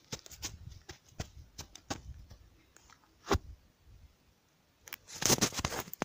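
Irregular crunching, rustling and knocking of footsteps and movement through dry forest leaf litter and undergrowth, with the handheld camera knocked about. One heavier thud comes about three seconds in, then a louder, dense burst of rustling and cracking near the end.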